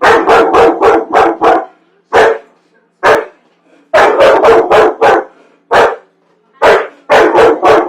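A dog barking loudly and repeatedly, in fast runs of several barks with short pauses between them.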